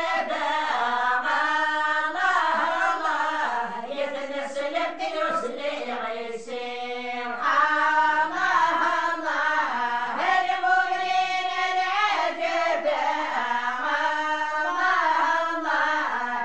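A group of women chanting an Amazigh religious praise song (madih) together, unaccompanied, in a continuous flow of sung phrases.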